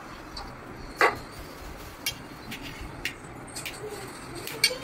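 Stainless steel kitchenware clinking: one sharp clink about a second in, then a string of lighter clicks and taps as a knife cuts steamed egg on a steel plate.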